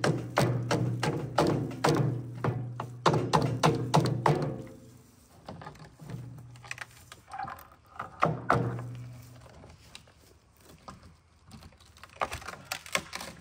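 Rapid wooden knocks and clatter of old weathered boards being knocked apart and handled, with a low droning tone under the first few seconds. A second run of knocks comes near the end.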